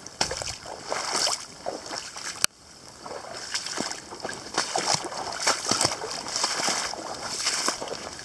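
Running footsteps splashing and sloshing through shallow stream water, several uneven steps a second. There is a sharp click about two and a half seconds in.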